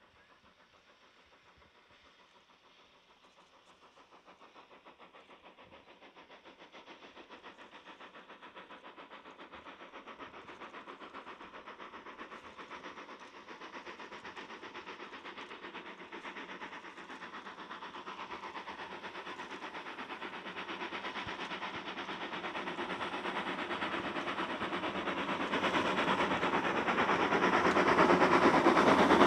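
LBSCR Terrier 0-6-0T steam tank locomotive working a short train as it approaches: faint at first, then its rapid exhaust beats grow steadily louder.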